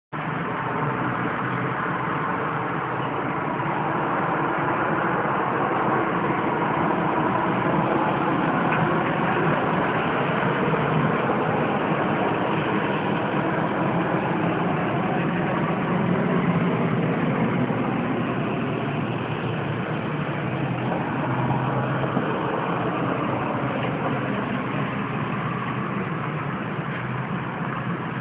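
Steady rumble of distant city traffic, with no thunder heard.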